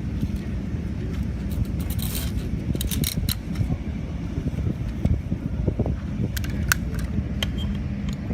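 Sharp metallic clicks and clacks of M4 carbine parts being fitted back together during reassembly, a handful spread through, over a steady low rumble.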